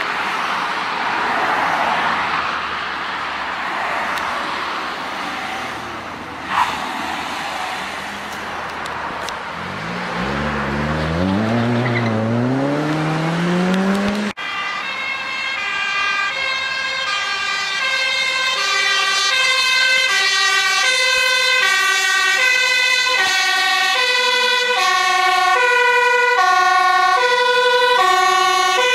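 Road traffic noise from passing vehicles, with an engine note rising as a vehicle speeds up. About halfway in, after a cut, a Dutch fire engine's two-tone siren alternates steadily between a high and a low note, growing a little louder near the end.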